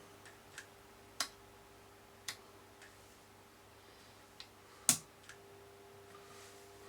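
Scattered light clicks and taps from hands working on a CB radio and its test gear, about seven in all, the loudest about five seconds in, over a faint steady hum.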